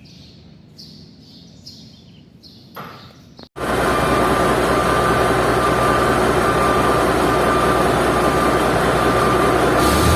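Faint bird chirps, then an abrupt cut about three and a half seconds in to a loud, steady machine noise with a held whine, running unchanged.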